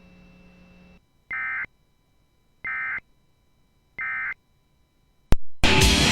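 Emergency Alert System end-of-message code: three short, identical bursts of buzzy data tone, evenly spaced a little over a second apart, signalling that the alert has ended. Near the end a sharp click, then loud rock music cuts in.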